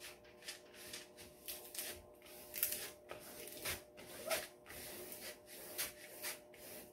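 Hands rubbing and pressing down the clear plastic cover film on a diamond painting canvas to push out air pockets: a run of soft, irregular swishing strokes, one or two a second.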